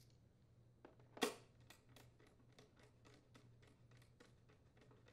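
A nut driver threading and tightening the blower housing cover bolts on a Briggs & Stratton mower engine. There is one sharp click about a second in, then faint, evenly spaced clicks at about four a second.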